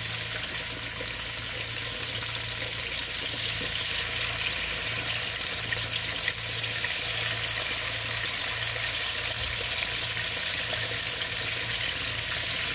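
Thin pork chops sizzling steadily in hot vegetable oil and plant butter in a skillet, a fine, even crackle of frying fat.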